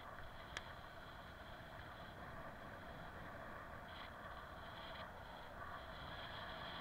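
Bicycle coasting downhill on an asphalt path: steady tyre and wind noise, with one sharp click about half a second in.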